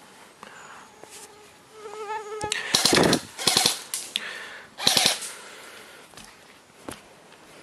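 Airsoft guns firing three short bursts of rapid full-auto shots, the longest about three seconds in, a shorter one just after and another about five seconds in.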